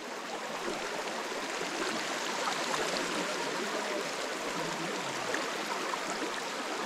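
Shallow river water running steadily, growing a little louder, with small splashes from a person wading knee-deep through it.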